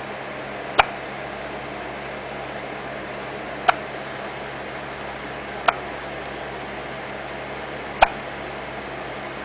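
Hiccups: four short, sharp ones about two to three seconds apart, over a steady background hiss.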